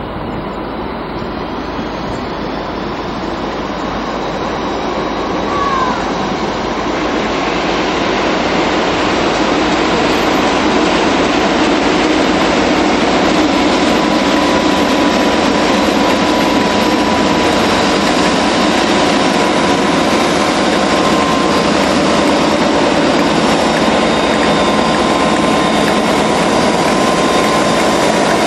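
Class 57/3 diesel-electric locomotive, with its two-stroke EMD engine, hauling a passenger train as it comes in and passes close by. The engine and train noise grow louder over the first ten seconds or so and then hold steady. A brief gliding squeal sounds about six seconds in.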